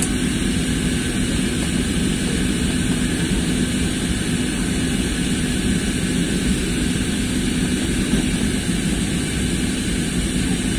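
Steady cabin noise inside an Airbus A320-family jet airliner on its landing approach: the drone of the jet engines and the rush of air past the fuselage, with a steady low hum under it.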